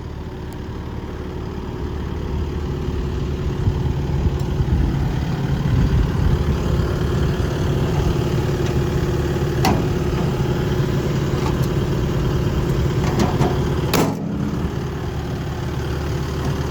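Isuzu diesel engine of a Sany SY135C hydraulic excavator running steadily, growing louder over the first few seconds. A few sharp knocks sound over it, the loudest about 14 seconds in.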